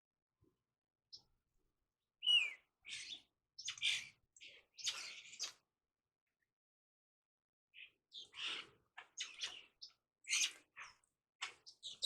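Birds chirping and calling in short, scratchy bursts. There are two clusters of calls, the first a couple of seconds in and the second after a pause of about two seconds.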